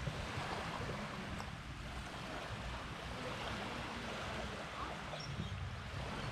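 Small waves washing gently on the shore of a calm beach, with wind buffeting the microphone in a steady low rumble.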